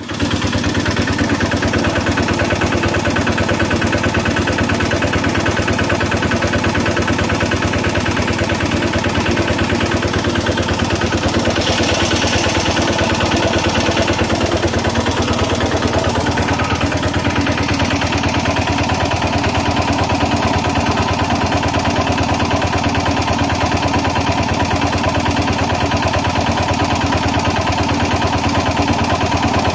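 Engine running steadily at constant speed, idling like a generator set, with a fast, even firing beat. A short hiss rises about twelve seconds in, and the tone shifts slightly a few seconds later.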